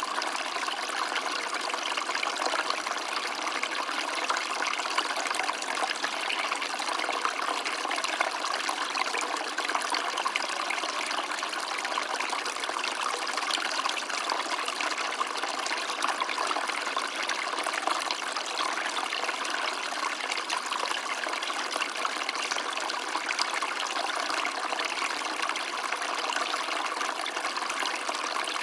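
Small stream running steadily, water trickling and babbling over rocks.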